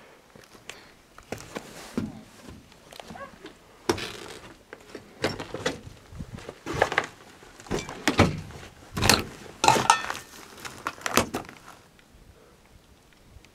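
Footsteps crunching and knocking over debris (boards, cardboard and paper) on an abandoned bus floor: irregular thuds and clatters, loudest and most frequent about two-thirds of the way through.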